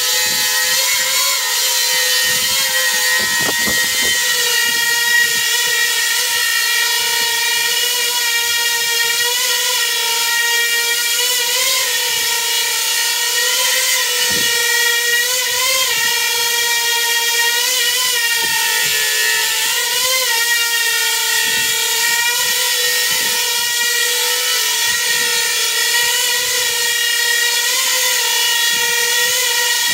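Coaxial copter's motors and rotors whining steadily in a hover, the pitch wobbling briefly every couple of seconds as the flight controller twitches the craft to test its angle control during ArduPilot AutoTune.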